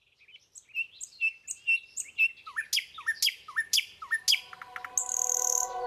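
A songbird chirping in a quick, regular series of sharp sweeping notes, about two a second, growing louder. Soft music tones fade in under it near the end.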